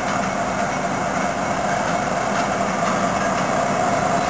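An approaching diesel locomotive-hauled train: a steady engine and rail rumble that grows slightly louder as it nears.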